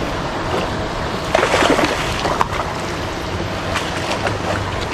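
A hooked fish thrashing and splashing at the surface of the pond about a second and a half in, with a few more small splashes after, over a steady wash of wind and water noise.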